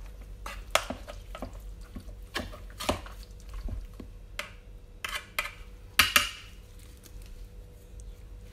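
Metal spoon scraping and clinking against a stainless steel bowl, stirring chunks of lamb into a wet yogurt-and-spice marinade in irregular strokes; the sharpest clink comes about six seconds in.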